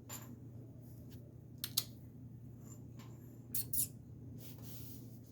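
Faint handling sounds: a few short soft clicks and rustles over a steady low room hum, with a pair of clicks a little before the middle and another cluster past the middle.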